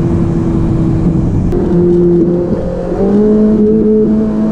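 Ferrari 458 Italia's 4.5-litre flat-plane-crank V8 running at a steady pitch. After a brief dip in level, its pitch steps up about three seconds in.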